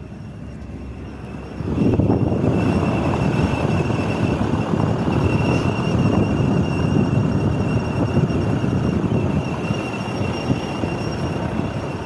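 Toyota Fortuner's left wheel heard up close while rolling slowly: loud tyre and road rumble that jumps up about a second and a half in, with a steady high-pitched squeal on top. The squeal comes only below about 30 km/h, and the owner suspects a wheel bearing, or else the differential.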